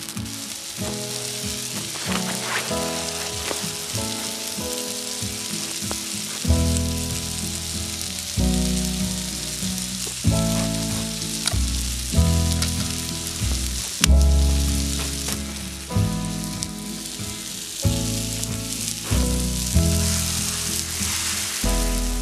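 Vegetables sizzling as they fry in a pan over a wood fire, a steady hiss, under background music of slow chords; a deep bass part comes in about six seconds in and changes about every two seconds.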